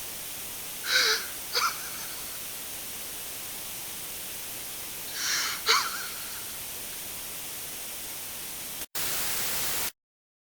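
Steady radio static hiss under a man's short, shaky sob-like breaths, two pairs of them, about a second in and again about five seconds in. Near the end the hiss drops out for an instant, a louder burst of static lasts about a second, and the signal cuts off to dead silence.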